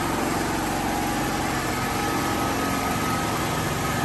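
Onboard gasoline generator engine of a Raven MPV-7100 hybrid ride-on running steadily.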